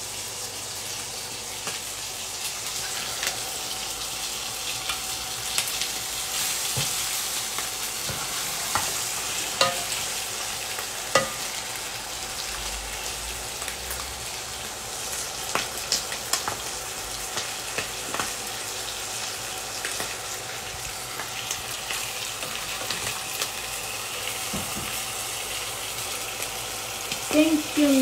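Marinated chicken wings sizzling as they fry in hot oil in a pan, with a steady hiss. Metal tongs click against the pan now and then as the wings are turned.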